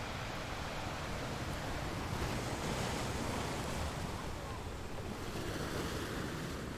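Sea waves washing on the shore: a steady rushing surf that swells a little a couple of seconds in and eases off near the end.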